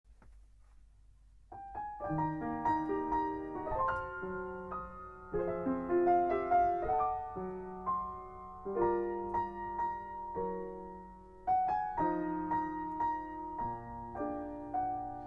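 Piano music, a sample home recording played back at a low level: the caption calls the volume quite low, a sign of recording gain set too low. Notes and chords begin about a second and a half in, over a faint low hum.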